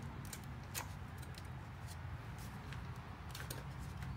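A few faint, sharp clicks of small hard objects being handled, about a second in and again near three and a half seconds, over a low steady hum.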